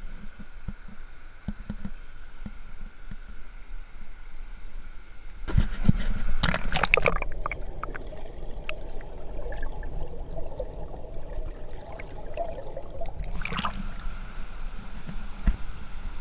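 Rushing water of a fast river rapid. About five and a half seconds in comes a burst of splashing as the microphone plunges under the surface. The sound then turns muffled and dull with scattered ticks for several seconds, and splashes again as it breaks back out near the end.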